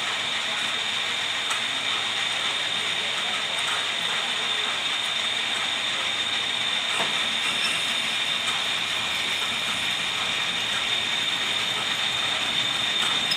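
Lathe running steadily, its mechanism giving a constant high whine over an even mechanical noise, with a few faint ticks.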